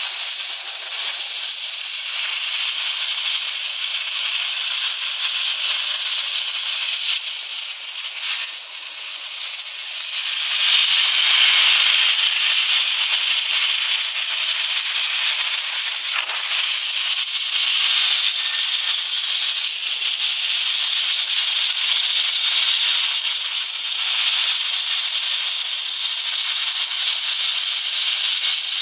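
CNC gantry plasma cutter torch cutting a metal plate: a steady, loud, high-pitched hiss of the arc and its gas jet, with no low rumble. It swells a little about eleven seconds in.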